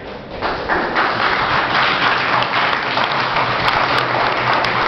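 Audience applauding: many people clapping together, swelling within the first second and then holding steady.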